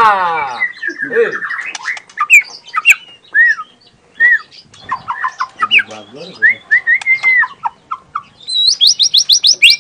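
White-rumped shama (murai batu) singing: a harsh falling note at the start, then varied short whistles and chirps with brief pauses, breaking near the end into a fast run of rising high notes.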